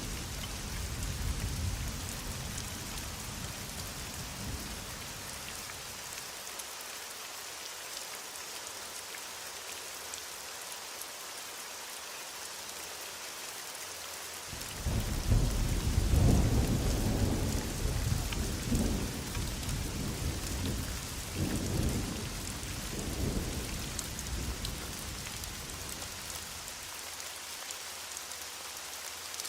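Heavy rain falling in a steady hiss. A low rumble of thunder fades away early on. About halfway through, a loud roll of thunder breaks in suddenly and rumbles on in several surges for about ten seconds.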